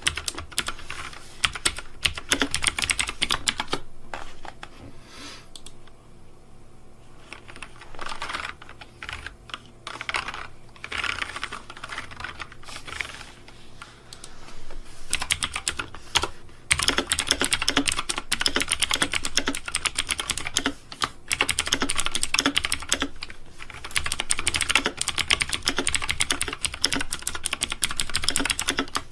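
Fast, dense typing on a keyboard: rapid runs of key clicks with short pauses about six seconds in and again around sixteen seconds.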